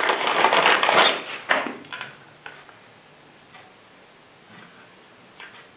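Packaging and a plastic paddle holster being handled as they are taken out of the box: loud rustling for about the first two seconds, then a few light clicks and taps.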